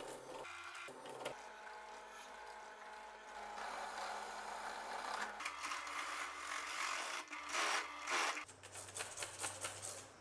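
Bench drill press running, its bit grinding shallow pits into the steel blade of an old butcher cleaver, the motor hum and cutting noise jumping abruptly several times. Louder from about halfway, when a stepped cone bit bites into the blade.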